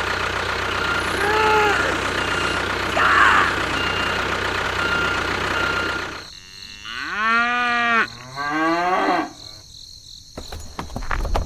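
A steady mechanical running noise, like a small engine, runs for about six seconds and then drops away. A cow then moos twice, two long calls that rise and fall in pitch.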